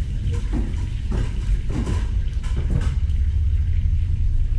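Steady low kitchen rumble, with about four soft knocks in the first three seconds as food is cut on a plastic cutting board.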